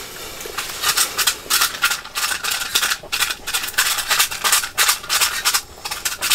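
A small dog scuffling and nosing at a minnow bucket in loose snow, eating the minnows: irregular quick scratchy scuffs and crunches.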